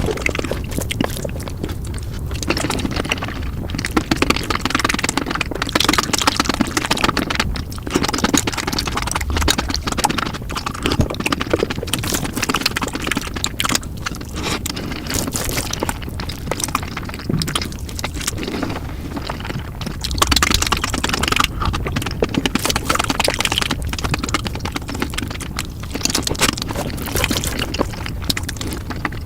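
Close-miked eating sounds of big bites of noodles, sped up four times: a dense run of chewing, slurping and wet mouth clicks with no pauses.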